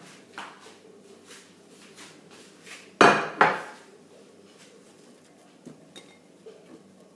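Kitchen knife tapping on a cutting board, a run of light, evenly spaced chops while bitter gourd is sliced. About three seconds in come two loud clattering knocks of kitchenware, then a few faint clicks.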